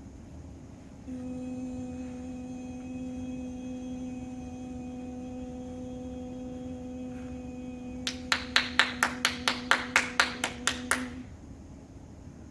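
A steady held tone of one pitch with overtones, like a hummed note, runs for about ten seconds. Near the end, a quick run of about a dozen hand claps, about four a second, comes in over it, and both stop together.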